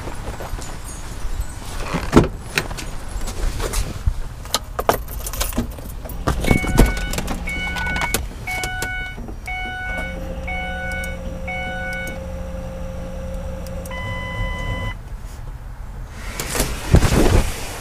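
Car door and keys handling, then a Ford Escape Hybrid's warning chime beeping about twice a second for several seconds as the car is switched on. A steady hum comes in partway through, and a single longer tone sounds near the end, followed by a few knocks.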